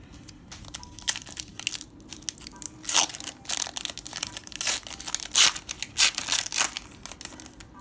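Foil Pokémon booster pack wrapper being torn open and crinkled by hand: a run of sharp crackles and rips that comes in bursts, loudest in the middle stretch.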